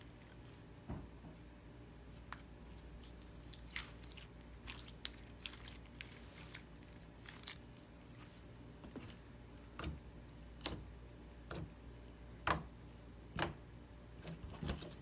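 Clear red jelly slime being squeezed and kneaded in bare hands, giving off irregular wet clicks and pops. They are sparse at first and come several a second from about four seconds in.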